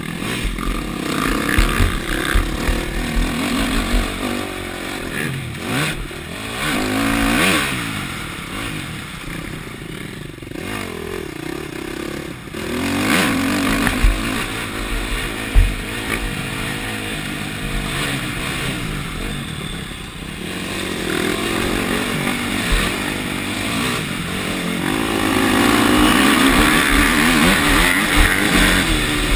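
KTM four-stroke motocross bike ridden hard on a dirt track, its engine revving up and falling back again and again through corners and straights, heard from the rider's helmet with wind noise. Two sharp knocks stand out about halfway through.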